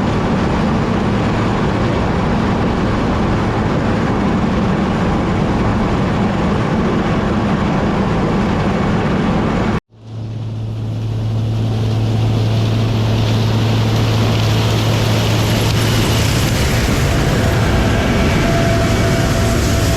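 Combine harvester running steadily with a low hum. About ten seconds in the sound cuts out abruptly, then returns as a different steady drone with a strong low hum and a rising hiss.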